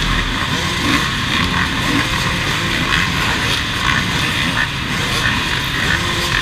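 A large pack of enduro motorcycle engines running together, many bikes idling with frequent short blips of the throttle, forming a dense, steady din.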